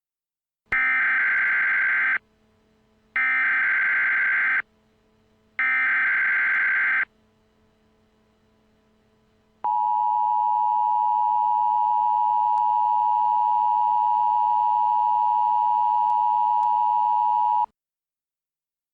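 Emergency Alert System activation: three screechy bursts of the SAME digital header, each about a second and a half long with short gaps between, then, about two seconds later, the steady two-tone EAS attention signal held for about eight seconds before cutting off.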